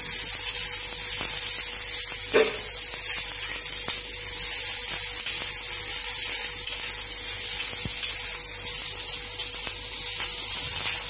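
Sliced onions frying in hot oil in an iron kadhai, a steady sizzle as they are stirred with a spoon, with one brief knock about two seconds in.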